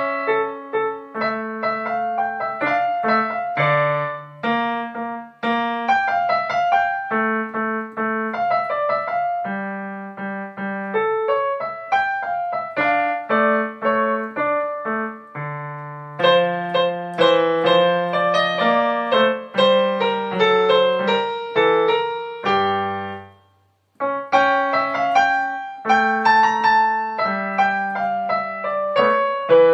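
A minuet played on a Yamaha digital keyboard with a piano voice: a melody in single notes over a lower bass line. About 23 seconds in the playing ends on a low note, stops for a moment, then starts again.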